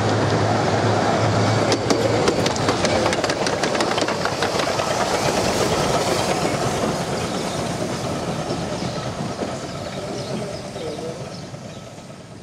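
A 15-inch gauge steam locomotive running past at close range, its wheels clicking over rail joints and pointwork. The sound fades steadily in the second half as it draws away.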